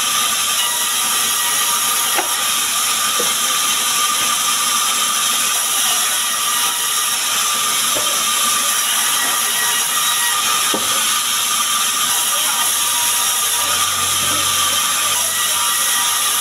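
Sawmill band saw running and ripping a small sengon (albizia) plank lengthwise: a steady high hiss and rasp of the blade in the wood over a constant whine, with a few faint knocks of the timber on the table.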